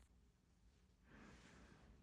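Near silence: room tone, with a faint soft rustle from about a second in.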